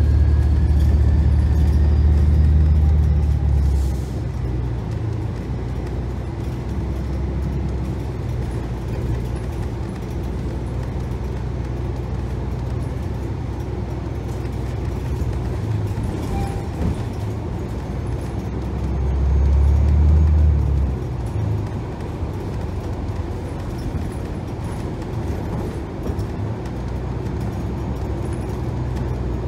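Cabin ride noise of a 2018 New Flyer XDE60 hybrid articulated bus (Cummins L9 diesel with BAE HybriDrive) on the move: a steady low drone that grows louder for the first few seconds and again about two-thirds of the way through, with a faint rising whine at the start.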